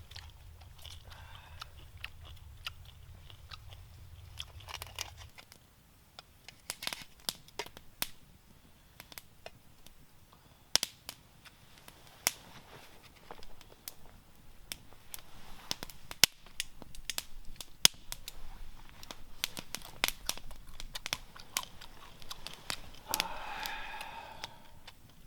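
Scattered sharp clicks and crunches at an irregular pace. A low hum runs for the first five seconds, and a short pitched sound comes near the end.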